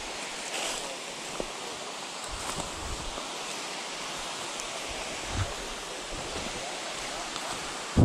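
Steady rushing of a rocky woodland creek and its small falls below the slope. A few soft low thumps from the hiker's footsteps and handling come through, and a loud low bump lands right at the end.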